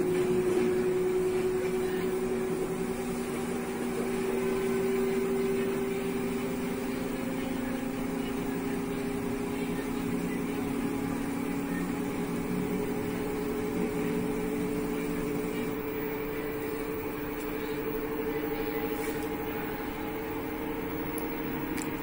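LG front-loading washing machine in its spin cycle: a steady motor and drum whine that rises slowly in pitch. This is the normal spin-cycle sound of this machine.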